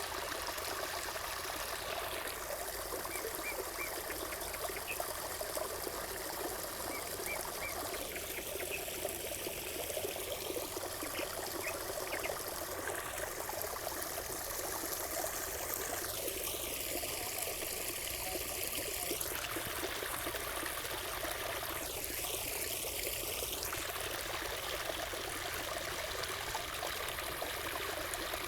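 Water trickling and running steadily, as from a small stream or fountain, in an even, continuous flow.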